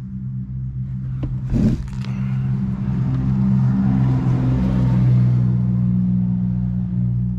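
A motor running with a steady hum, joined about a second and a half in by a sudden burst and then a loud, steady rush of air that swells and holds.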